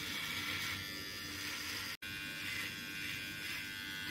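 Xiaomi Grooming Kit Pro cordless beard trimmer buzzing steadily as its bare blade, with no comb attachment, cuts beard hair along the chin and jaw. The sound drops out for an instant about halfway through.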